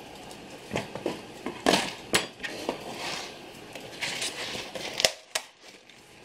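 Handling noises on a workbench as a bushing assortment box is moved and set aside and a notebook is taken up: scattered light taps, rustles and clicks, with a few sharper knocks about two seconds in and again near five seconds.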